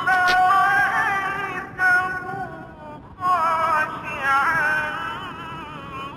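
A voice singing a slow melodic line in long held notes with wavering pitch, phrased with short breaks about two and three seconds in.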